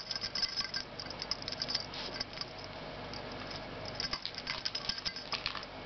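Light, irregular rustling and clicking of a wand toy with fabric strips being swished about and batted by a kitten playing on cloth.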